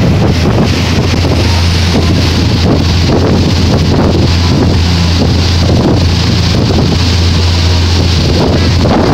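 Loud, steady wind noise buffeting the microphone on the deck of a motor boat under way, over the drone of the boat's engines and the churning of its wake astern.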